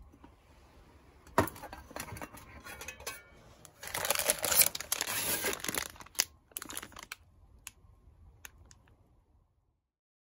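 Crinkling and rustling handling noise, with a sharp knock about a second and a half in and a louder stretch from about four to six seconds. A few sharp clicks follow, and it dies away shortly before the end.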